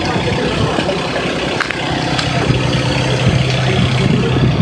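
An engine idling steadily: a low, even hum.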